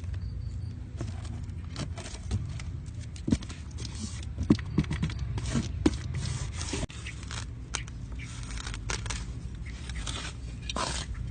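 Irregular scraping, clicking and knocking of objects being handled by hand, over a steady low hum.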